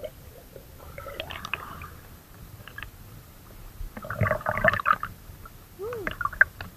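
River water splashing and gurgling close to the microphone in a few short bursts, the loudest about four to five seconds in.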